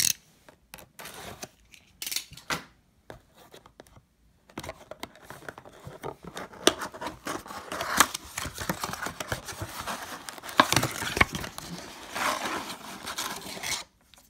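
Cardboard blaster box of trading cards being opened by hand and its foil card packs pulled out. There are a few taps and clicks of handling in the first few seconds, then from about four seconds in continuous tearing, crinkling and scraping of cardboard and foil wrappers, which stops just before the end.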